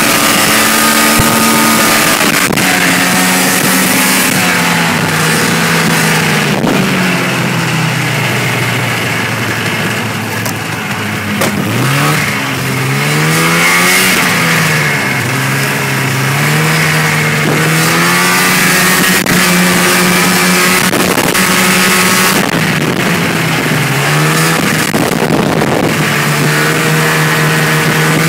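Snowmobile engine running along a trail, its pitch rising and falling as the throttle is eased and opened again, with a clear slowdown about ten seconds in before it picks back up, over a steady hiss.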